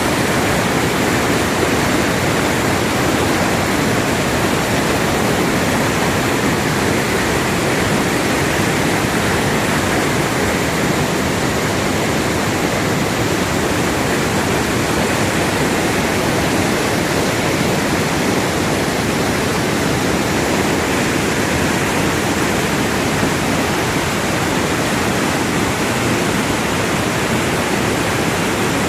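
Waterfall in heavy flood after rain, a large volume of water pouring down in a steady loud rush.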